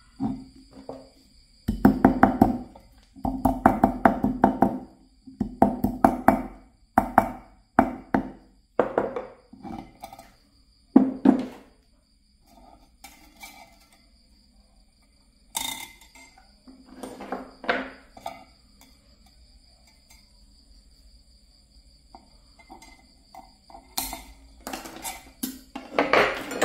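Hammer knocking on copper wire laid on a small wooden block, in bursts of quick strikes with a woody ring. There are long bursts over the first dozen seconds, a few scattered knocks in the middle, and another burst near the end.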